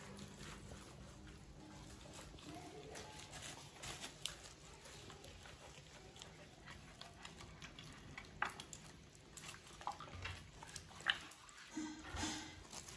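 Faint scattered clicks, taps and rustles of hands pressing scallions and ginger into a whole fish in a metal baking tray, over a low steady hum.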